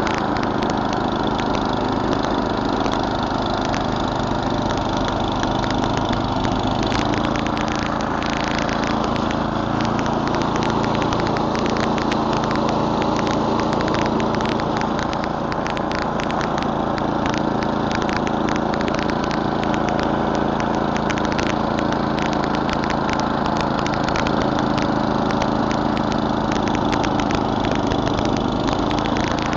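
Murray Select snowblower's 11 hp Tecumseh four-stroke engine running steadily while clearing snow, its pitch settling slightly lower about seven seconds in, with many sharp ticks from then on.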